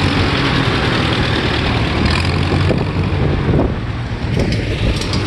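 Vintage farm tractor engine running steadily as the tractor drives past, its low hum strongest in the first few seconds.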